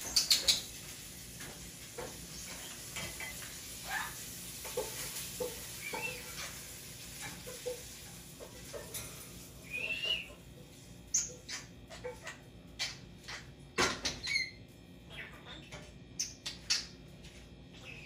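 European starling vocalizing: a rambling string of short whistles and chirps, some gliding up or down in pitch, broken up by sharp clicks that come thick and fast in the second half.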